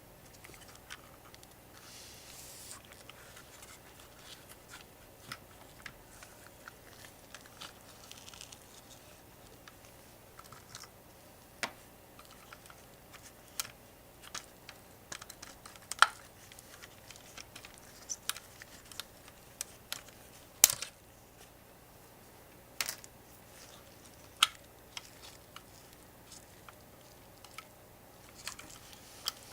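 Irregular faint clicks and taps of small parts and tools being handled, a few sharper knocks among them, over a low steady hum.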